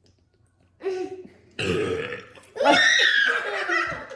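Three burps in a row, gas from carbonated Sprite gulped down fast. The last is the loudest and longest.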